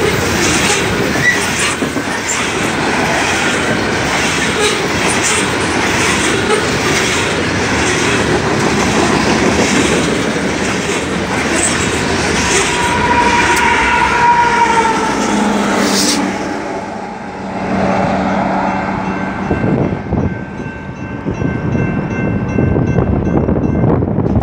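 BNSF coal train's hopper cars rolling past close by, steel wheels clicking steadily over rail joints, with a brief high wheel squeal a little past halfway. About two-thirds of the way in, the rolling noise drops away as the train clears, and a grade-crossing bell is left dinging repeatedly.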